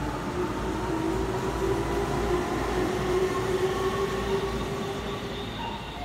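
Keihan electric commuter train running through the station, its motors giving a steady whine over a low rumble. The whine rises slightly and then holds, and the sound fades near the end.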